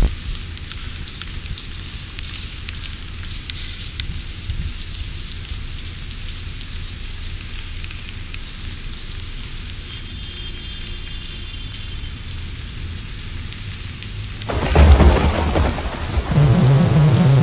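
Steady rain falling on pavement, then a sudden loud clap of thunder with a deep rumble about fifteen seconds in, followed by another loud stretch near the end.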